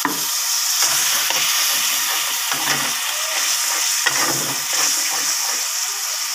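Onion-tomato spice masala, thinned with a little water, sizzling in a kadai over high heat as it is fried down, with a flat metal spatula scraping and stirring it in several irregular strokes over a steady hiss.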